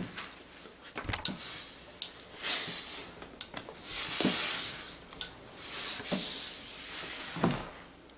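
Steam iron giving four short hissing puffs of steam while it presses fabric, with a few knocks as the iron is handled and set down.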